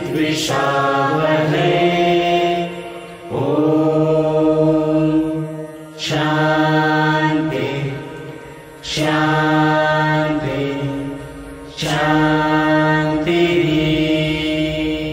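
A mixed group of men and women singing a devotional prayer chant in unison, in long held notes. A new phrase starts about every three seconds.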